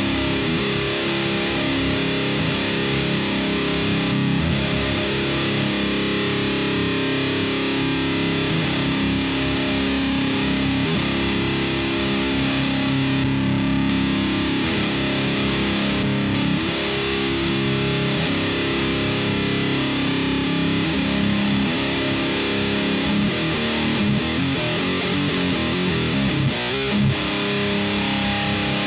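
Electric guitar played through a thiSHEAvyearth Grim distortion pedal: continuous, heavily distorted heavy-metal riffing, with brief stops a few times and busier changing notes near the end.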